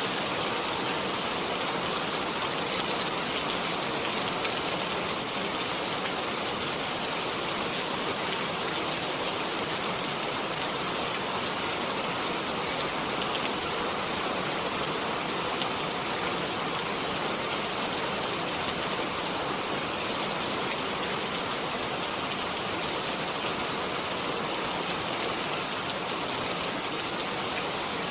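Steady rain falling, an even hiss with fine scattered drop ticks and no change in strength.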